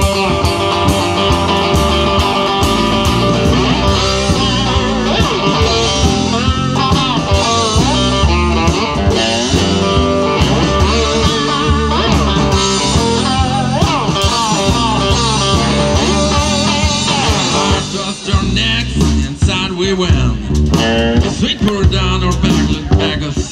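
Live blues band: a homemade cigar box guitar and drums keep a steady groove, while a harmonica played cupped to a handheld microphone bends and wavers over it. The music thins out and turns choppier about three quarters of the way through.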